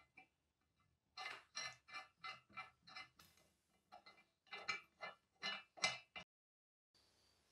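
Steel clamp screw of an antique Husqvarna meat grinder being turned by hand into its cast clamp frame: a run of short metallic clinks and scrapes, about three a second, that stops abruptly about six seconds in.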